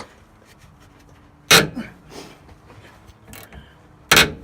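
Two sharp knocks about two and a half seconds apart, with faint ticks between them, from hand tools working a sway bar fastener loose.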